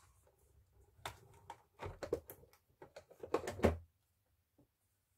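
A string of light clicks and knocks as craft supplies are handled and set down on a tabletop. It stops about four seconds in.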